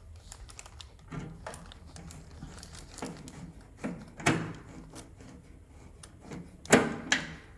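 Plastic parts of a microwave door latch mechanism being handled, with scattered clicks and knocks; the sharpest knocks come about four seconds in and again near seven seconds.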